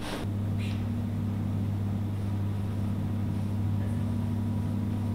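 Steady low electrical hum, like an appliance or mains hum in a room, with a faint click about half a second in.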